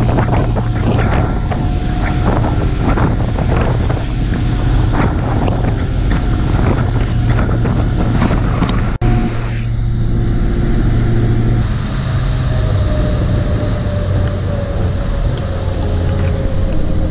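A passenger ferry's engine droning steadily, with wind buffeting the microphone and water noise. About nine seconds in the sound breaks off for an instant and the drone carries on steadier.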